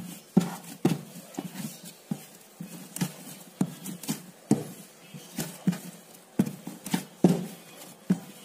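Hands kneading soft whole-wheat oat bread dough on a board: a run of uneven thuds as the dough is pressed and pushed, about two a second.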